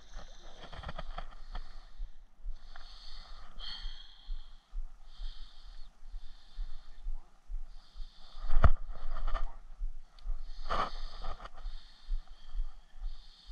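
Soft handling noise as a soft plastic stick bait is threaded onto a fishing hook, with a sharp knock about two-thirds of the way through and a second smaller one shortly after. A high-pitched buzz comes and goes about once a second throughout.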